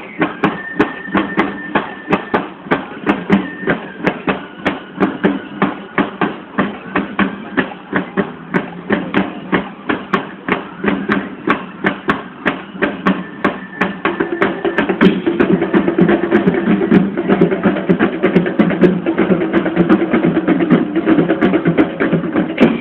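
Cadet marching band playing, drums keeping a steady march beat under held melody notes. The band swells fuller and louder about two-thirds of the way through.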